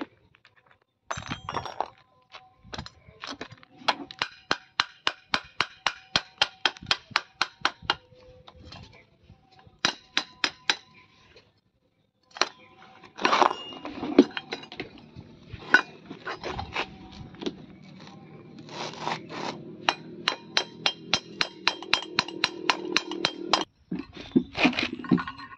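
Quick runs of ringing metallic clicks, about four a second, as the threaded rod and nut of a homemade steel screw clamp are worked. A low steady hum runs under the later clicking and stops shortly before the end.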